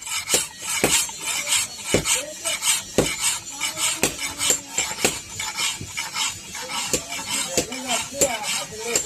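Steel knife blade being sharpened by hand: repeated sharp metallic strokes and clinks, irregular, about one or two a second, with a bright scraping hiss between them.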